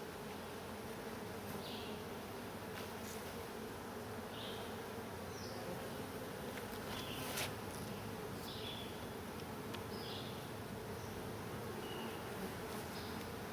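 Honeybees buzzing in a steady hum around an open hive, with a few short high chirps and faint clicks over it.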